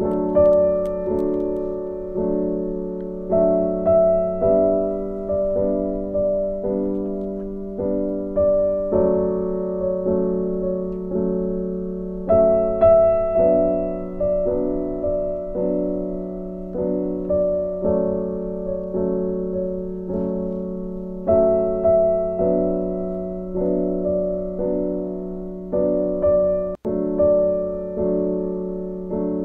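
Background piano music: a slow, gentle tune of single struck notes, each fading away.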